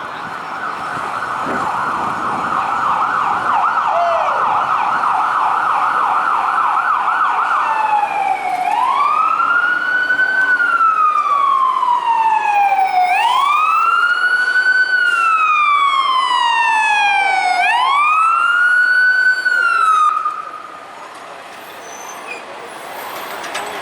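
Fire engine's electronic siren on a rapid yelp, switching about eight seconds in to a slow wail that rises and falls three times, then stops, leaving the noise of the truck on the road.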